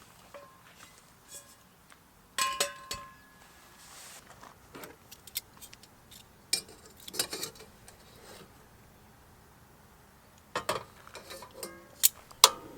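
Dishes and utensils clinking and knocking as they are handled, in a few separate clusters of sharp clicks, one of them ringing briefly.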